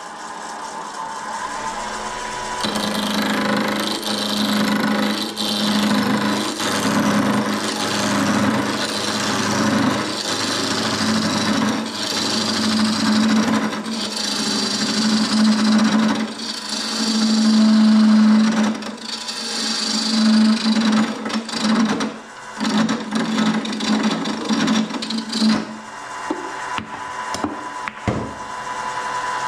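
Gouge cutting a spinning wooden knob blank on a wood lathe: a steady rough scraping with a low hum under it, starting about three seconds in and stopping a few seconds before the end, followed by a few short knocks.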